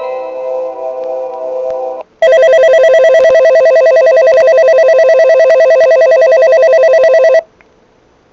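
Yamanote Line station-melody alarm clock's speaker: a chiming train-departure melody ends about two seconds in. After a short gap a loud, rapidly trilling electronic departure bell (the clock's 'Bell B') rings for about five seconds and cuts off suddenly.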